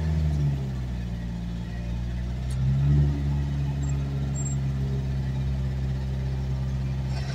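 A vehicle's engine running steadily in low gear down a steep slope, heard from inside the cab, its note swelling briefly about three seconds in.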